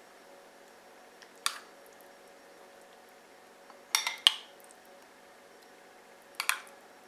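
A metal spoon clinking against a glass bowl while scooping cherry pie filling: a clink about a second and a half in, a quick double clink about four seconds in, and another near the end.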